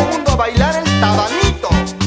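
Live tropical dance band music through a stage PA, keyboard-led over a steady, fast beat of drums and a repeating bass line.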